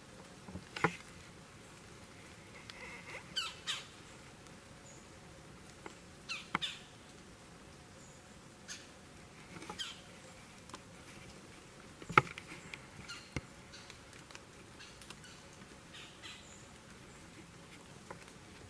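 Quiet woodland with scattered short rustles and snaps, the sharpest about a second in and about twelve seconds in, and a few brief bird calls.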